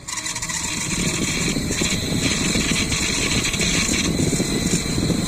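Sunon KDE2412PTB1-6A 24 V high-speed fan spinning up and running with a rough grinding rattle from its bad ball bearings. The noise starts suddenly, builds over about a second, then holds steady with a thin high whine on top.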